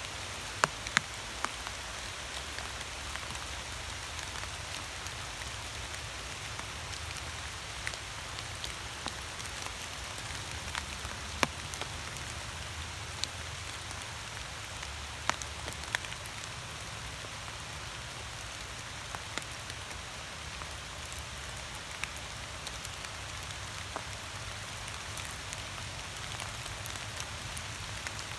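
Steady rain falling, a constant hiss with scattered louder drops tapping close by, over a low steady rumble.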